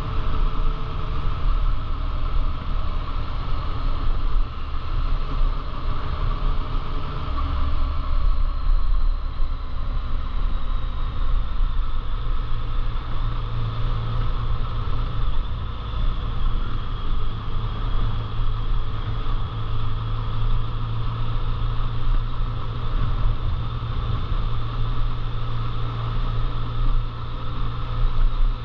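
Steady drone of a moving vehicle's engine, with a step in the low rumble about seven seconds in and again a few seconds later.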